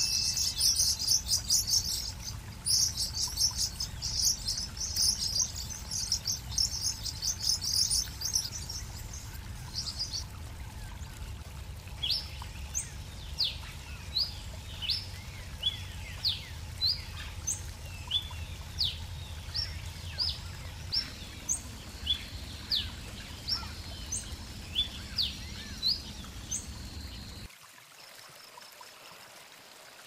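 Blue-winged parrotlets chattering in rapid, buzzy, high chirps for about ten seconds. Then comes a spaced series of short, sharp, down-slurred whistles, the song of a yellow-billed cardinal, over a low outdoor rumble. Near the end it cuts off suddenly.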